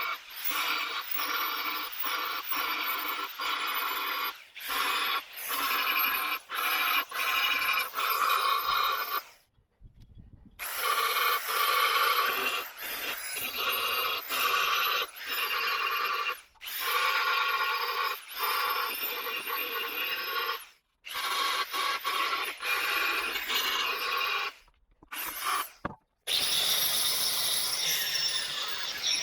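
Hammer blows on steel sheet, struck in quick succession, the panel ringing at several metallic tones with each blow, with abrupt breaks between stretches of work.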